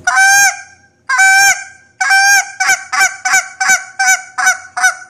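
Goose call blown in spit notes: three drawn-out honks, then a quick even run of short spit notes, about three a second, each a sharp two-part honk.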